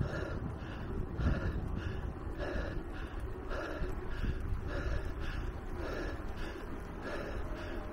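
A cyclist breathing hard and fast in rhythmic puffs, about two breaths a second, from the effort of a steep uphill climb on an electric bicycle.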